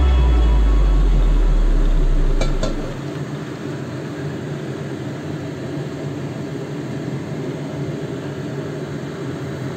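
A deep bass tone from the ending music slides down in pitch and dies away over the first few seconds. After that comes the steady whirring hum of a kitchen appliance, such as a fan, with a faint clink of dishware about two and a half seconds in.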